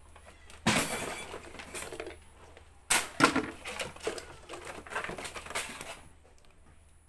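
Scrap plastic handled and sorted from woven sacks: rustling, crinkling and clattering of hard and thin plastics, starting sharply about a second in, with a second loud burst about three seconds in, and dying down about a second before the end.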